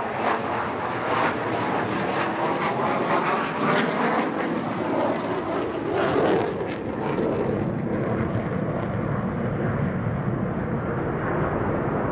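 F-15SG fighter's twin jet engines running at high power as it climbs out after take-off. There is a ragged crackle through the first half, and after about eight seconds the roar turns duller as the jet climbs away.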